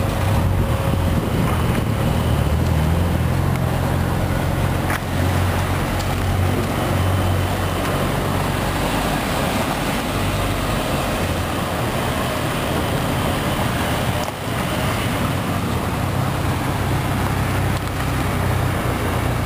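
Classic Toyota twin-cam engine running steadily, a low even drone.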